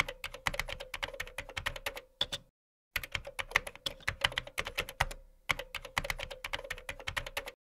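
Typing sound effect: rapid key clicks in three runs, broken by short pauses about two and a half and five seconds in, synced to on-screen text being typed out letter by letter.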